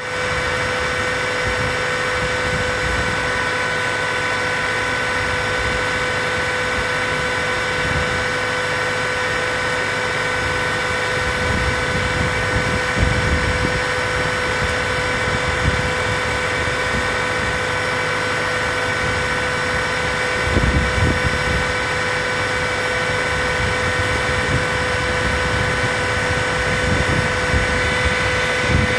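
John Deere CTS combine harvester running while harvesting beans: a steady, unchanging machine whine. Low gusts of wind buffet the microphone about twelve seconds in and again about twenty seconds in.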